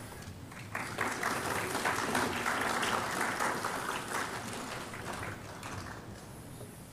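Audience applauding: the clapping starts about a second in, builds, then dies away toward the end.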